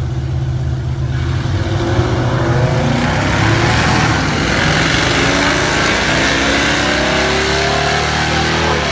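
Two vehicles on a drag strip launching from the line and accelerating hard away, one of them a Dodge pickup with a 440 big-block V8. A steady engine note swells about a second in, then several engine notes climb in pitch.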